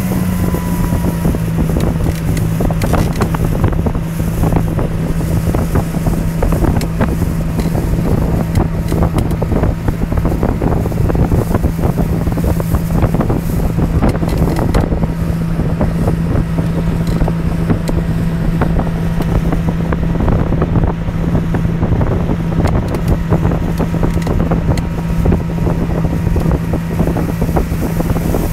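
Motorboat engine running at a steady speed while towing a water-skier, a constant low drone, with wind buffeting the microphone and the rush of the wake.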